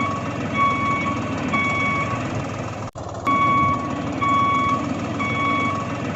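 Vehicle reversing alarm beeping about once a second over a steady running engine. The sound cuts out briefly about three seconds in.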